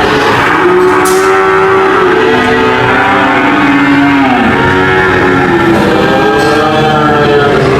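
Cattle mooing: two long, drawn-out moos in a row, the pitch arching up and falling away at the end of each, the second beginning about halfway through.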